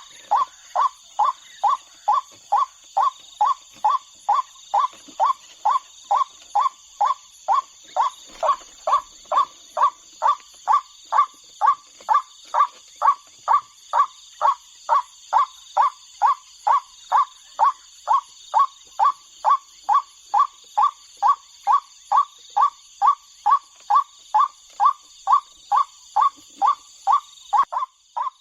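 White-breasted waterhen (ruak-ruak) calls: one short, hoarse call repeated about twice a second in a very even, unbroken series. Above it runs a steady high-pitched drone.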